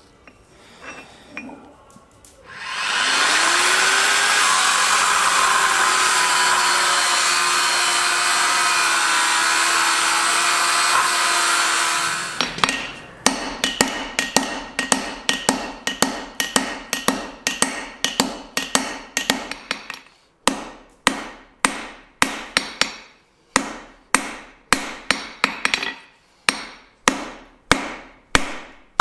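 A machine starts up and runs with a loud steady hiss for about ten seconds, its motor tone rising as it spins up, then cuts off. Then a hand hammer strikes hot steel on the anvil about twice a second, each blow ringing, upsetting a C45 steel hammer head to forge a cross peen.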